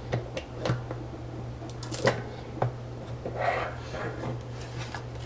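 The cutter of a We R Memory Keepers button press giving a few irregular cracks and clicks as it is pressed and turned, cutting through paper, with a short rustle about three and a half seconds in. A low steady hum runs underneath.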